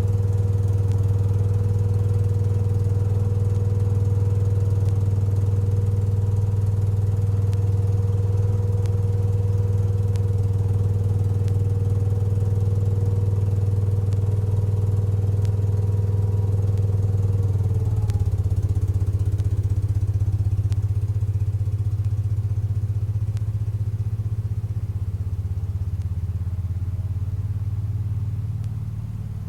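1975 Case 224 garden tractor engine running at a steady speed. About two-thirds of the way through its pitch drops, and the sound then grows gradually fainter.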